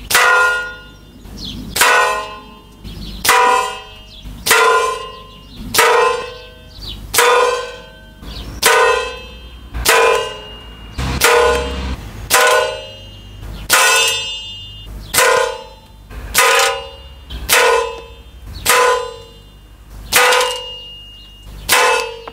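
Slavia 630 break-barrel .177 air rifle firing again and again at a steel beer mini keg. About every second and a half a shot is followed by a ringing metallic clang as the pellet strikes and punches through the keg.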